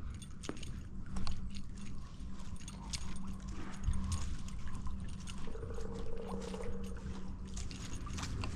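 Water trickling and gurgling at a garden pond, with scattered short clicks and knocks throughout.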